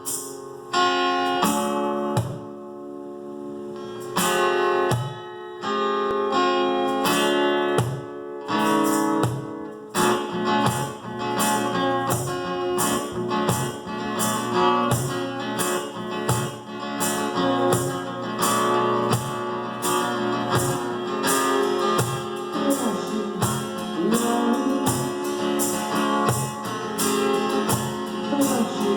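Acoustic guitar strumming chords in a live acoustic duo's playing. At first the chords are struck and left to ring, with short gaps between them; about a third of the way in this settles into a steady, even strumming rhythm.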